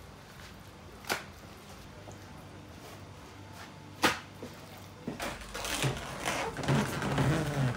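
Kitchen work with stainless steel pans of raw chicken: two sharp knocks, about a second in and about four seconds in, the second the louder. From about five seconds in comes a busier, louder stretch of handling noise.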